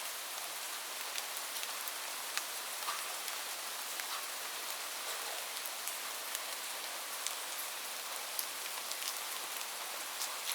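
Steady rain: a dense, even hiss with many separate raindrops ticking sharply through it.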